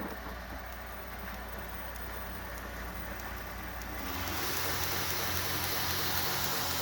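2x72 belt grinder running at speed, its 1 hp Techtop motor driven by a KB Electronics variable-speed drive: a steady hum with the hiss of the running belt. About four seconds in it gets louder, with much more hiss.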